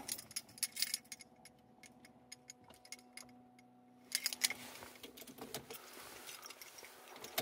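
Car keys jangling and clicking at the ignition as the key is worked to switch the car on, with a run of light ticks and a louder rustle about four seconds in.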